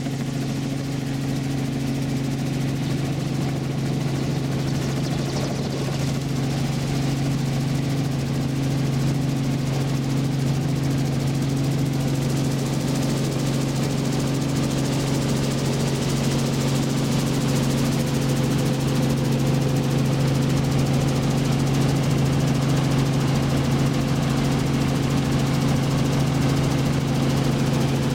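Robinson R44 helicopter's engine and rotors running at takeoff power as it lifts off and climbs: a steady low drone with wind rushing in through the open doorways, growing a little louder as it picks up speed.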